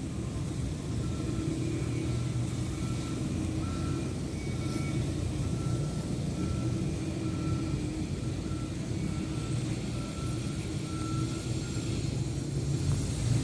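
Steady low rumble of vehicle engines or traffic, with a faint reversing alarm beeping about twice a second from about a second in until near the end.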